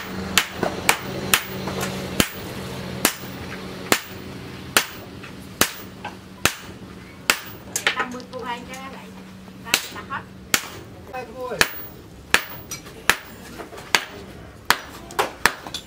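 Hammer blows on a hot steel cleaver blank at the anvil: sharp metallic strikes about one to two a second, irregularly spaced. A steady low hum runs under them and stops about two-thirds of the way through.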